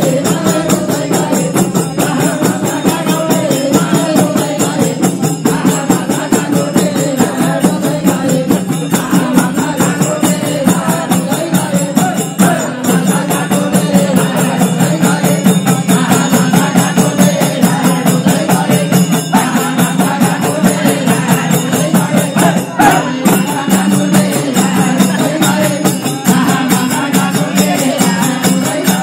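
Nepali bhajan: a group singing a devotional song in a chant-like melody over a fast, steady beat of percussion with jingles.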